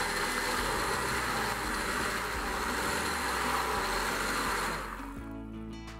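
Electric blender running steadily as it beats a yeasted semolina pancake batter after baking powder has been added. It is switched off about five seconds in, leaving faint background music.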